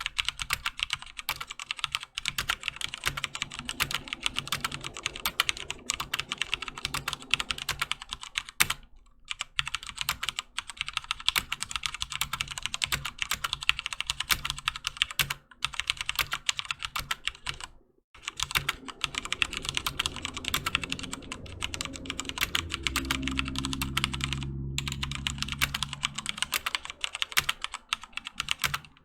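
Fast continuous typing on a HyperX Alloy FPS Pro mechanical keyboard with Cherry MX Red linear switches: a dense stream of key clacks with a few brief pauses. A low hum sits under the typing for several seconds after the middle.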